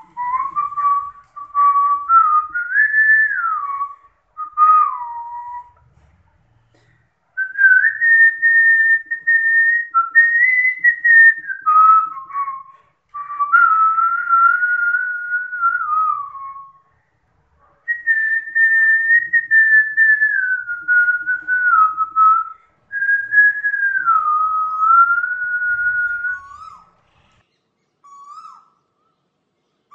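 A person whistling a slow tune by mouth: one clear line of held notes stepping up and down, in phrases with short pauses between them, trailing off into a few short notes near the end.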